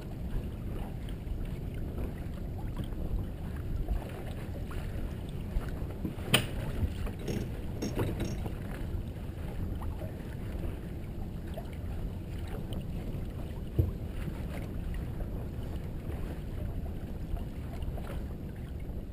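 Wind buffeting the microphone aboard a Merit 25 sailboat under sail, a steady low rumble with water washing along the hull. A sharp click about six seconds in and a dull knock near fourteen seconds stand out.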